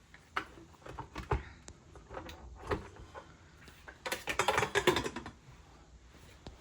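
Kitchen mixer and its bowl clicking and knocking irregularly as cooked chicken thighs are chopped up, with a dense clatter lasting about a second, starting about four seconds in.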